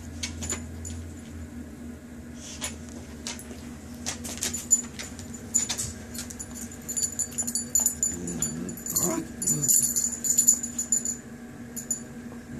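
Dogs playing: a short, wavering low dog vocalization about eight seconds in, with scattered clicks and a light metallic jingling, such as a chain collar, from about six to eleven seconds in.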